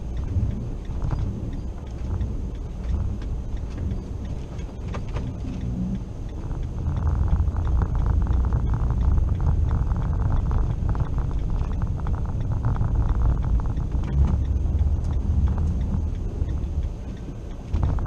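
Vehicle engine and tyres heard from inside the cab on a snow-covered hill, the wheels spinning and losing grip in the snow. The engine and a gritty tyre noise get louder about seven seconds in and ease off shortly before the end.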